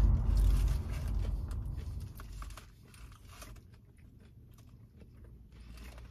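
A person chewing and crunching a mouthful of crispy fried chicken sandwich close to the microphone. It is loudest for the first two seconds, then fades to faint chewing ticks.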